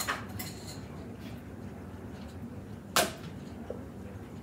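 A single short knock about three seconds in, over a faint steady background: a small dish or utensil set against a hard kitchen surface while things are cleared off the counter.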